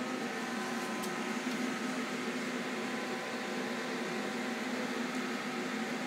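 Steady machine hum with fan-like noise, unchanging throughout, with a faint click about a second in.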